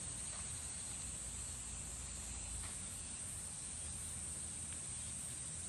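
A chorus of insects shrilling steadily on one high pitch, without a break.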